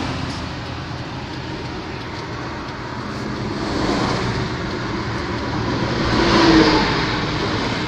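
Road traffic noise heard from inside a vehicle: a steady rumble and hiss that swells twice, about four seconds in and, louder, about six and a half seconds in, as vehicles pass.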